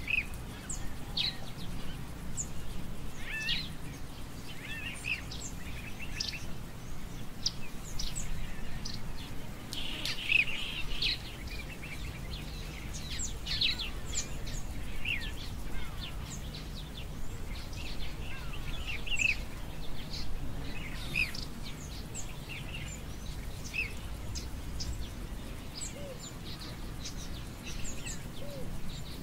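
Wild birds calling, with many short chirps and trills scattered through, over a steady low rumble.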